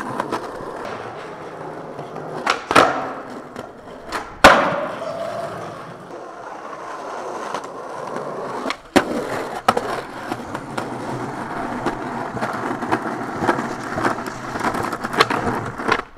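Skateboard wheels rolling on concrete with a steady grind, broken by sharp clacks of the board hitting the ground on pops and landings. The loudest clack comes about four and a half seconds in, and others come a couple of seconds in and around nine seconds in.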